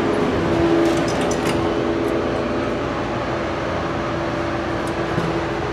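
Elevator cab ventilation fan running: a steady hum with a constant tone and a few faint ticks.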